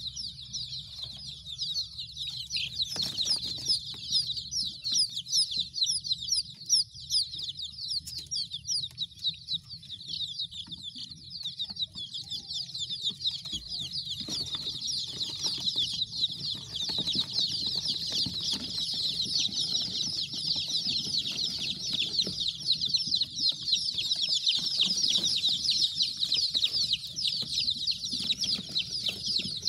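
A flock of desi (native Indian breed) chicks peeping nonstop, many short high-pitched chirps overlapping into a dense chorus.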